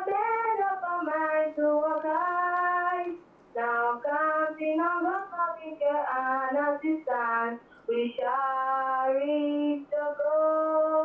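A girl sings a school anthem unaccompanied over a telephone line. She holds her notes in short phrases, and the voice sounds thin, with the highs cut off as on a phone call.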